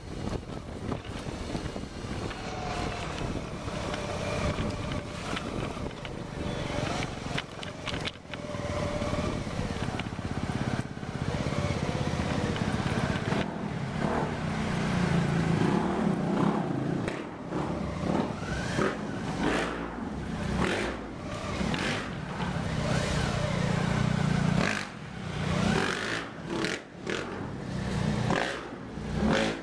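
Suzuki V-Strom 650's V-twin engine running on a dirt trail, rising and falling with the throttle. Wind noise on the microphone and frequent knocks and rattles from the bike and camera jolting over bumps.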